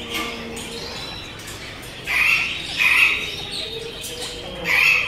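African grey parrot squawking: three short, loud calls, about two, three and nearly five seconds in.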